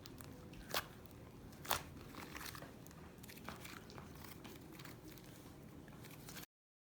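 Slime being squished and worked in the hands, giving faint crackles and small popping clicks, with two sharper clicks in the first two seconds; the sound cuts off abruptly near the end.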